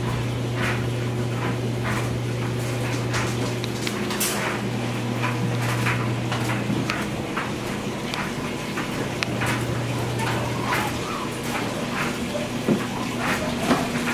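Puppies' claws clicking and pattering on a hard tiled floor as they scamper about, with a steady low hum underneath and a couple of louder knocks near the end.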